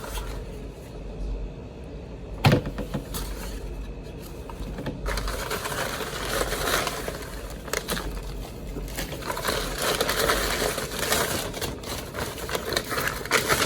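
Paper envelope and packing material rustling and crinkling as they are handled, with one sharp knock about two and a half seconds in. The rustling gets busier from about five seconds in.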